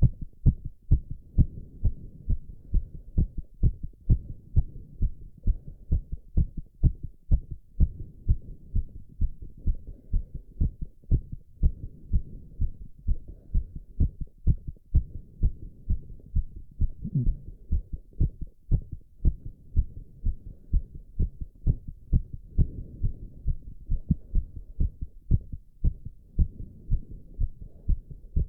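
A man's heart beating fast, heard as low, dull lub-dub thuds at about two beats a second, steady and regular; the rate is raised by squats.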